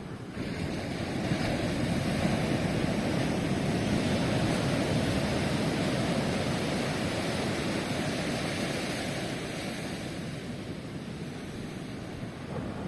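Ocean surf: a wave breaks and washes up the shore, surging about half a second in, then slowly easing back.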